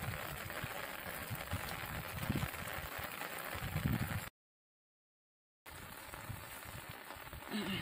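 Steady outdoor hiss with irregular low rumbles, like wind or handling on the microphone. The sound cuts out completely for about a second and a half just past the middle, then resumes.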